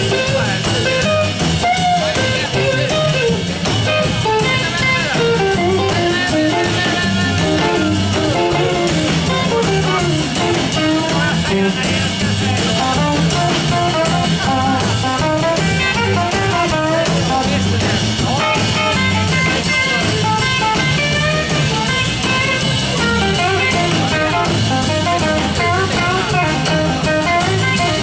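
Live blues band playing an instrumental stretch: electric guitar lines over an upright double bass and a drum kit, steady and loud throughout.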